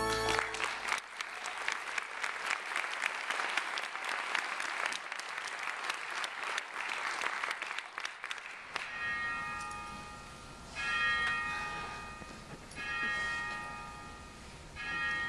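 Audience applauding for about nine seconds, then dying away. After that a bell-like pitched chime sounds four times, about two seconds apart, each stroke fading out.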